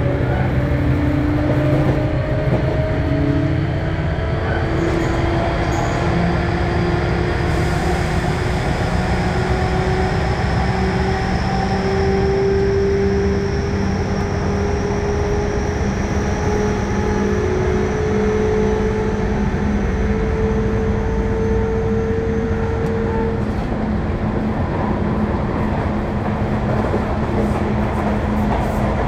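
Sotetsu New 7000 series electric train heard from above its VVVF inverter: the inverter and traction-motor whine climbs steadily in pitch as the train gathers speed, over the rumble of wheels on rail. About three-quarters of the way through, the whine dies away and only the running noise remains.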